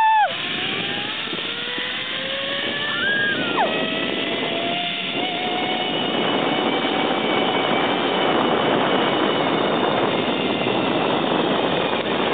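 Zip-line trolley pulleys running fast along the steel cable: a steady whirring hiss with a faint whine that slowly rises in pitch as the rider picks up speed. About three seconds in, a short high tone drops sharply in pitch.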